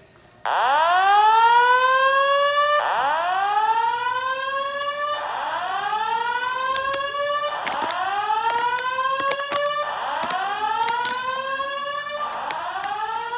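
Fire alarm going off suddenly about half a second in, sounding a repeated rising whoop tone: each sweep climbs and levels off, about one every two and a half seconds. Sharp clicks sound over it near the middle.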